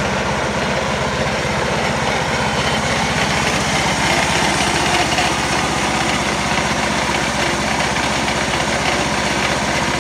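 Small engine of a homemade garden tractor built on a ride-on mower chassis, running steadily at idle with a fast, even putter.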